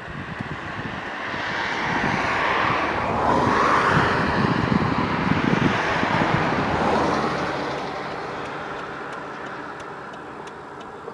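A vehicle driving past on the road, its tyre and engine noise swelling to a peak about four seconds in and then slowly fading away.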